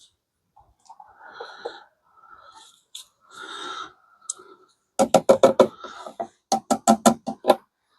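A small syringe drawing out and squirting dirty diesel from a diesel heater: soft wet slurps first, then about halfway through two quick runs of sharp spurts, roughly seven a second.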